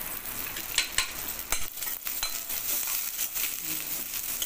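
Sliced onions sizzling steadily in hot groundnut oil in a stainless steel kadai, with several sharp clicks and scrapes of a metal spatula against the pan as they are stirred.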